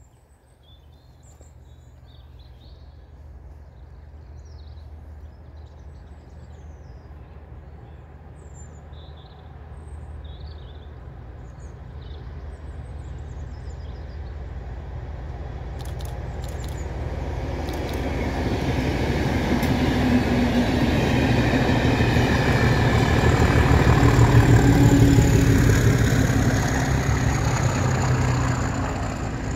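Class 37 diesel locomotive's English Electric V12 engine and the train's wheels growing steadily louder as the train approaches and passes. The sound peaks a few seconds before the end and then begins to fade. Small birds chirp during the first part.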